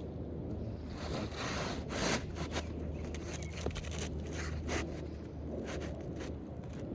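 Asphalt shingles and roofing felt being lifted and handled, a series of short rubbing and scraping sounds, thickest in the first half, over a steady low wind rumble on the microphone.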